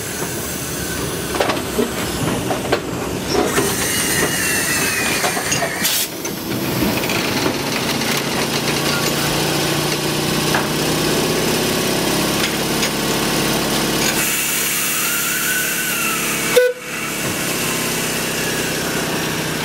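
Narrow-gauge model train running sounds: a steady rumble of rolling stock with hiss and a few short, high, gliding squeals. The sound cuts out abruptly for a moment about three-quarters of the way through and then resumes.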